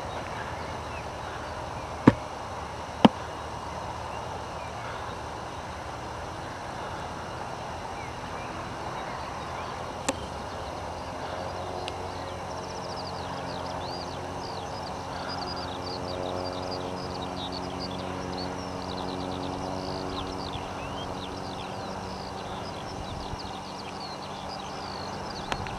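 Outdoor ambience with a steady hiss and a few sharp clicks in the first ten seconds. From about halfway, a distant engine drones with steady tones while birds chirp rapidly in quick high notes.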